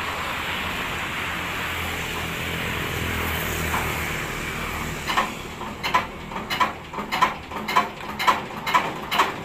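Diesel engine being hand-cranked: after a steady hiss, even rhythmic chuffs about three a second begin some five seconds in as the crank spins it up toward starting.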